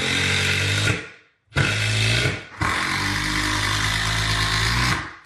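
Cordless drill driving screws into a wooden ledger board on a wall, in three runs: about a second, a short burst, then a longer run of over two seconds.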